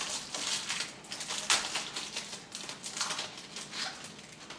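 Trading cards and a clear plastic sleeve being handled: a run of irregular crinkly rustles and scrapes.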